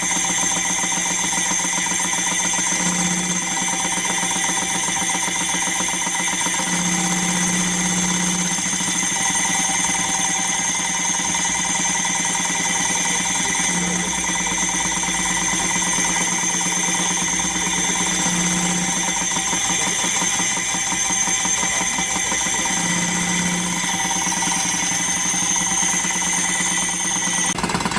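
A tractor engine running steadily with a fast mechanical rattle, as the tractor works with its mounted seed drill.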